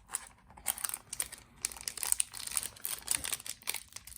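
Trading cards and card packs being handled: a quick, busy run of crisp rustles and small clicks.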